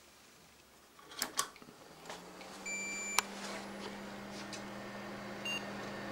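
Two clicks, then PC case fans start up about two seconds in and keep running with a steady hum and air noise. A short electronic beep sounds as they spin up, followed by a click and a brief second blip.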